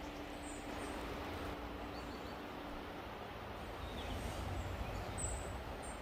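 Quiet outdoor background hiss with a steady low hum that stops about halfway, a few faint high chirps, and a low rumble that swells briefly near the end.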